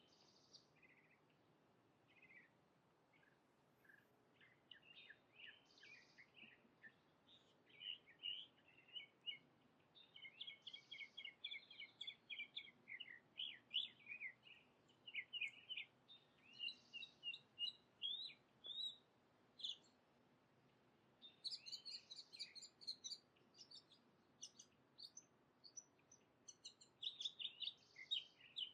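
Birds calling in short, high chirps: scattered at first, then a quick run of many overlapping chirps from about eight seconds in, with a short pause and then more calls near the end.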